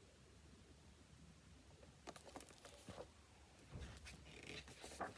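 Faint paper rustling and small clicks of a picture book being handled and its page turned, starting about two seconds in.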